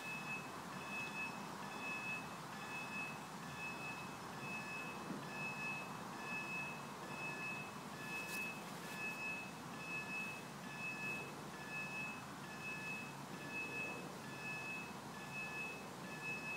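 Level crossing audible warning alarm beeping steadily, about three beeps every two seconds, as the road barriers come down to warn of an approaching train.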